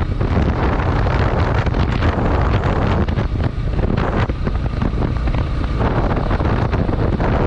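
Wind buffeting the microphone on a moving motorcycle: a loud, steady rumbling rush with riding noise underneath.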